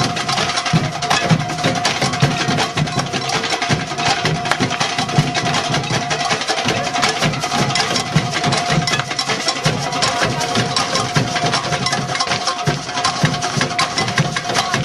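Live band music driven by busy percussion: quick drum and wood-block strokes over a held tone.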